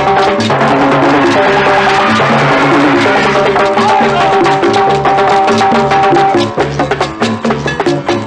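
Salsa music from a cassette recording: dense hand percussion and clave-like wood-block strikes over a bass line, with held melody notes. About six seconds in, the held notes drop out and the percussion carries on alone.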